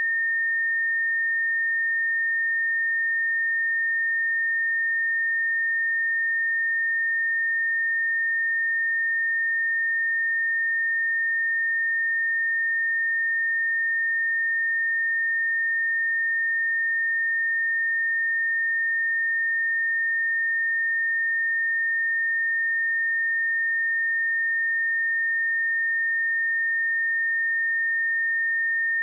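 A steady 1825 Hz sine-wave test tone: one pure high-pitched tone held at constant level without change.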